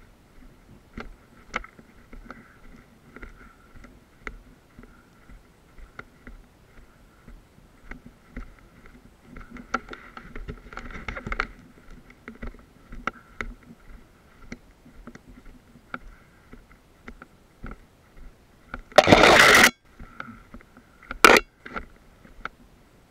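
Scattered light clicks and scuffs of footsteps over rubble and cracked concrete, heard through a body-worn camera, over a faint steady high hum. About 19 s in there is a loud rough scraping rush lasting under a second, and a sharp crack about two seconds later.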